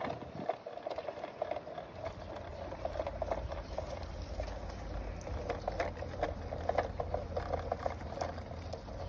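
Garden-railway train, a small locomotive pushing a parcel van, rolling along the track: quick irregular clicking and clattering of wheels on the rails, with a low rumble that comes in about two seconds in and grows as it approaches.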